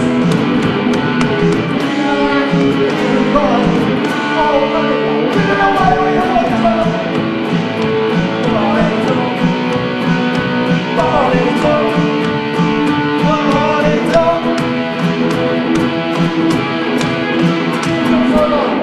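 Live rock music: an electric guitar played over electronic drum sounds set off by pads worn on the performer's body and struck by hand, keeping a steady beat.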